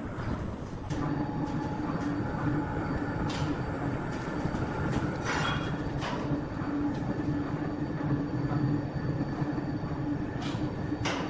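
Heavy sawmill machinery running with a steady low hum, with scattered metallic knocks and a brief squeal about five seconds in, like heavy steel moving on rails.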